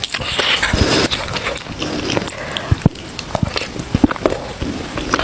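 A person eating: chewing and wet mouth noises with many short clicks.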